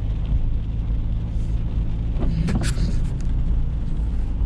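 Steady low rumble of a pickup truck's engine and road noise while driving, with a couple of brief higher sounds about two and a half seconds in.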